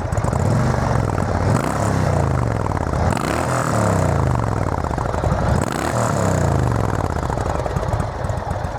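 V-twin motorcycle engine with a Freedom Performance aftermarket exhaust, idling and revved with about three throttle blips, its pitch rising and falling back each time. The exhaust runs freshly sealed with a new gasket after a leak.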